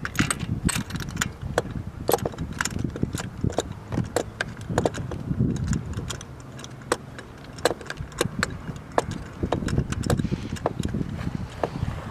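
Irregular metallic clicks and clinks of hand tools on the engine, over low handling rumble, while spark plugs are being worked on during a cylinder compression test.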